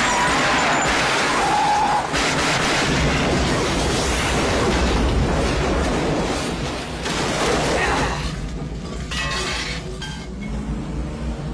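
A vehicle explosion sound effect from a film soundtrack: a loud blast with a long, heavy rumble that fades over the last few seconds.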